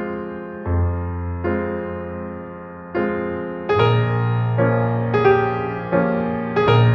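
Slow, gentle piano music: chords struck about once a second over held bass notes, with the bass moving to a new note near the middle and again near the end.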